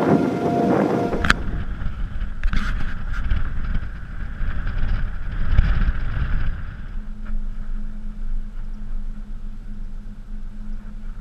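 Wind rumbling over the microphone outdoors, with a vehicle engine running. A steady low hum sets in about seven seconds in.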